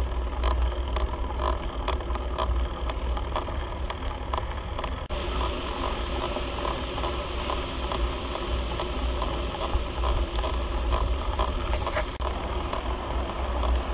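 Wind rumbling on the microphone of a bicycle rider climbing a mountain road, with a steady hiss that gets louder about five seconds in and scattered sharp clicks in the first few seconds.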